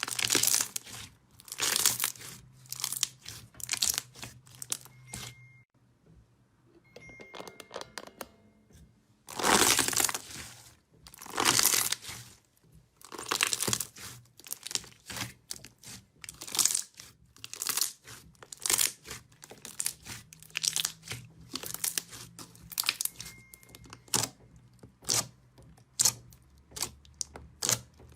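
Crunchy, crackling strokes of a brittle ASMR material being pressed and broken, each a short burst of crackle and tearing, about one a second, with a pause about a third of the way in and coming quicker and closer together near the end.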